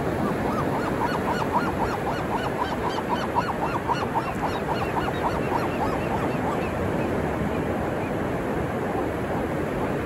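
Gull calling a long run of rapid, repeated squawks, about four or five a second, that tails off after about seven seconds, over the steady wash of ocean surf.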